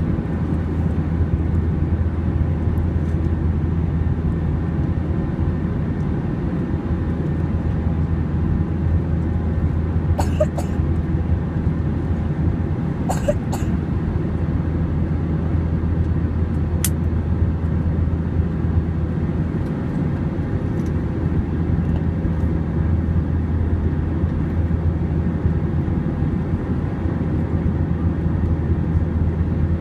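Airbus A321's jet engines and rushing airflow heard from a window seat over the wing: a steady, loud low drone as the plane climbs after takeoff. A few brief sharp sounds cut through it about ten, thirteen and seventeen seconds in.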